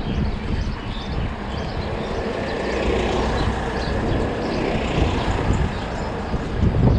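Steady rumble of wind on the microphone and mountain-bike tyres rolling over a dusty dirt road, swelling a little in the middle, with a few knocks near the end.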